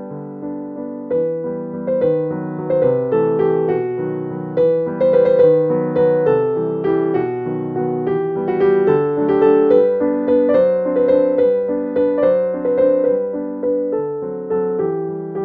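Background music: a gentle piano melody with struck notes in a steady rhythm.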